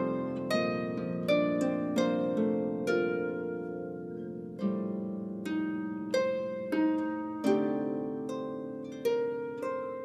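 Solo Camac lever harp playing a slow, expressive melody over plucked chords, a note or chord about once a second, each ringing on and fading away. There is a longer held, ringing pause a little before halfway through.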